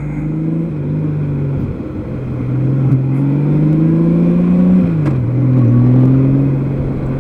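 2003 Honda Gold Wing's flat-six engine running under way. Its pitch climbs slowly for a few seconds, then drops about five seconds in and holds steady.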